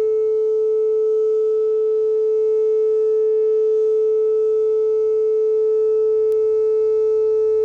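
Whelen WPS-2807 electronic outdoor warning siren sounding a steady single-pitch tone during its monthly test; the pitch holds without rising or falling.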